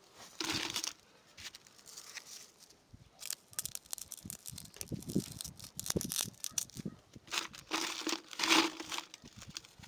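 Bricklaying: a trowel scraping and spreading mortar in irregular strokes, with a few soft dull knocks as bricks are set.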